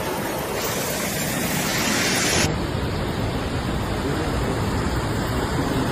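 Steady rushing noise of floodwater, with the sound changing abruptly about two and a half seconds in.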